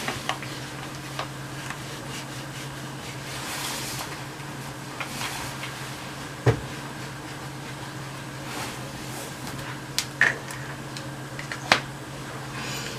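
Scattered knocks and clicks of things being handled, the loudest about six and a half seconds in, over a steady low electrical or fan hum.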